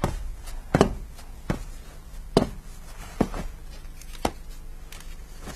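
A walking cane tapping on a hard floor, a series of sharp knocks about one every second.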